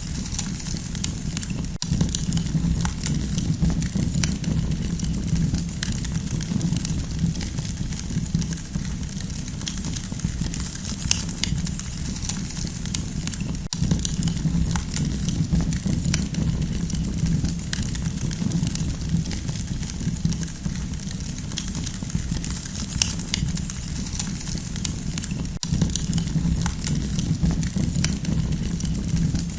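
Campfire crackling: many small, irregular pops and snaps over a steady low rumble of burning.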